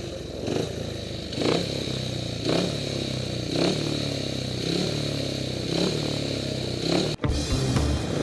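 Speedway motorcycle's single-cylinder engine ticking over, its throttle blipped about once a second. It breaks off abruptly near the end.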